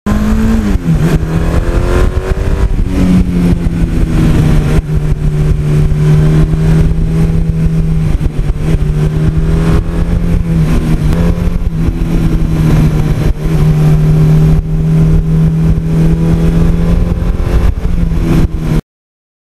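1982 Suzuki GS1100E's air-cooled inline-four engine running under way at a steady cruise. Its note dips and picks up again a few times with changes of throttle. It cuts off suddenly near the end.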